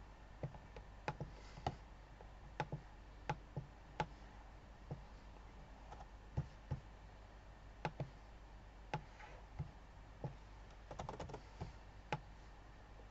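Irregular single clicks of a computer mouse and keyboard, with a quick run of clicks about eleven seconds in, over a faint steady low hum.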